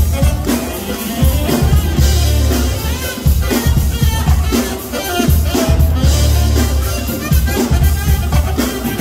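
Live band music: a saxophone plays over a drum kit and a heavy bass line.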